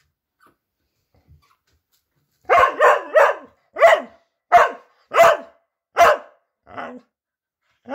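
A Lapphund barking: after a few seconds of quiet, a quick run of three barks, then about five single barks spaced evenly, the last one fainter.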